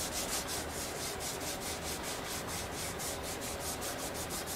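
Acetone-soaked rag scrubbed rapidly back and forth along a metal bicycle handlebar, wiping off old foam grip residue: a steady run of short, even rubbing strokes, several a second.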